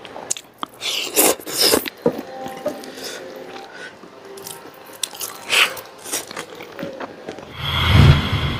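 Eating sounds of leafy water spinach and fried chicken eaten by hand: irregular crunches and chewing. Near the end, intro music starts.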